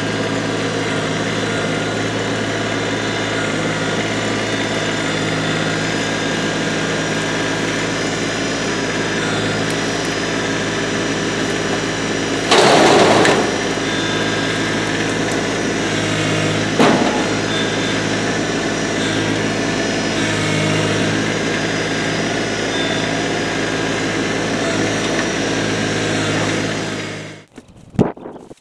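LS MT125 compact tractor's diesel engine running steadily while its front loader works. About twelve seconds in there is a loud crash of brush dropping from the loader forks onto a trailer, and a few seconds later a sharp knock. The engine sound stops abruptly near the end.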